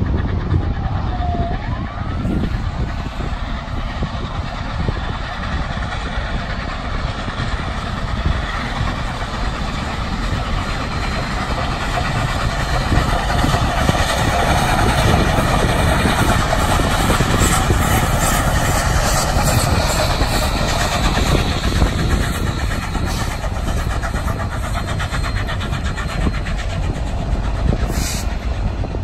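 Union Pacific steam locomotives, including 4-8-4 No. 844, running past under steam, a loud steady rush of exhaust and running gear. A tone slides down in pitch in the first second or two.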